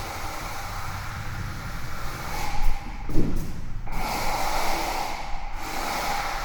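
Steel trowel scraping across wet floor mortar in long strokes, with brief pauses between them and a low thump about three seconds in.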